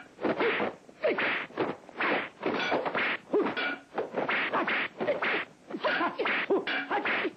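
Kung fu film fight sound effects: a rapid run of dubbed punch and kick hits, about two a second.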